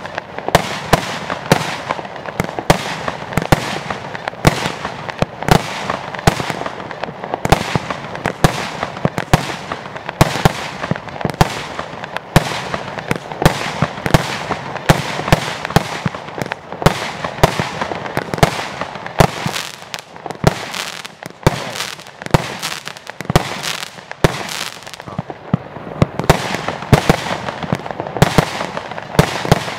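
106-shot compound fireworks cake (Blue Blaster) firing a continuous rapid string of shots, about two a second. Each shot is a sharp bang from a shell launching and bursting into stars.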